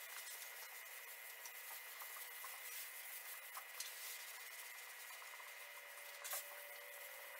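Faint rasping rub of dry 400-grit sandpaper on a hand sanding block worked over the primer on a truck's body panel, smoothing out orange peel before paint. A single light knock near the end.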